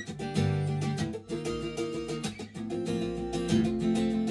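Recorded acoustic guitar strumming chords, a soloed track played back through a studio room-reverb plugin.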